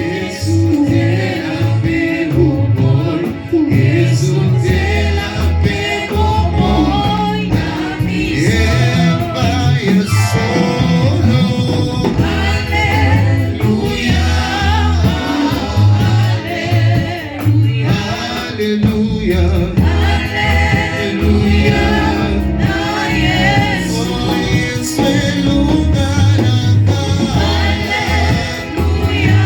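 Gospel worship music: voices singing over a band with a heavy, steady bass line.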